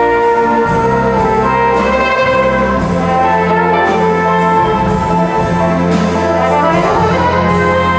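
Seven-piece jazz band playing live: trumpet and trombone holding chords over bass and drums, with the drums keeping a steady beat of about two strokes a second.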